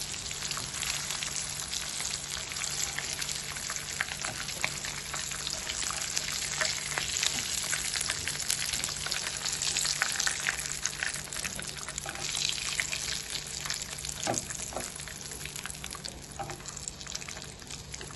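Batter-coated shrimp deep-frying in hot oil in a pan: steady sizzling with many small pops and crackles, easing off near the end.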